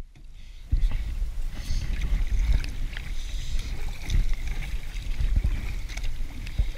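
Kayak paddling: a double-bladed paddle stroking through calm water in repeated surges, with water rushing along the plastic hull, muffled and heavy in the low end as heard through a GoPro's waterproof housing.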